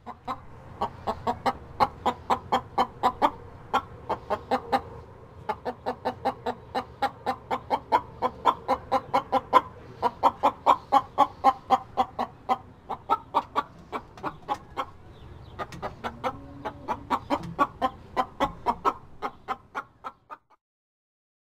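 Hen clucking in a fast, continuous run of short clucks, several a second, over a low steady hum; it stops about a second before the end.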